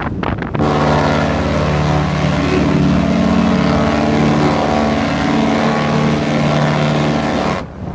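Cruise ship's horn sounding one long, deep blast of about seven seconds, starting just under a second in and cutting off near the end: a departure signal.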